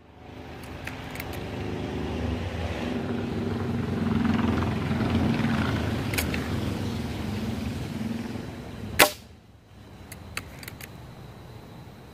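A single sharp shot from a .22 caliber break-barrel pellet gun about nine seconds in. Before it, a low background noise swells and fades over several seconds; a few small clicks follow the shot.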